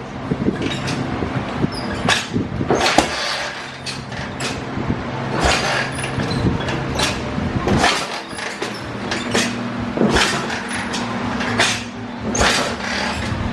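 1980 Harley-Davidson Shovelhead 80-inch V-twin engine running steadily, with sharp pops or cracks at irregular intervals about once a second.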